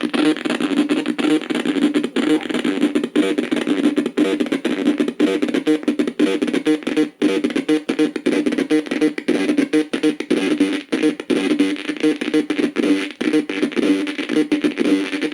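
Loud, dense noise music with a steady drone near the low-middle of the range and fast, choppy pulsing throughout.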